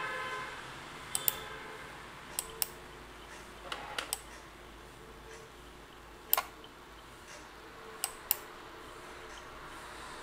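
Computer mouse button clicking about ten times, several in quick pairs, over faint steady background hiss.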